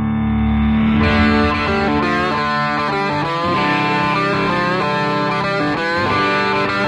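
Background music: held notes at first, then the full band comes in about a second in and keeps playing.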